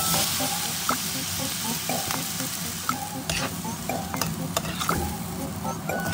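Soaked vermicelli noodles hitting a hot stainless steel pan of fried garlic and shallots with a sizzle, loudest as they go in at the start. A spatula then stir-fries them, scraping and clicking against the pan.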